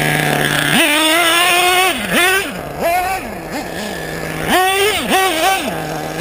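Team Associated RC8 nitro buggy's LRP ZR.30 nitro engine, geared with an 18-tooth clutch bell. It idles, then revs hard about a second in and holds full throttle for about a second. A string of short throttle blips follows, it drops back to idle, and it revs up again in quick blips near the end.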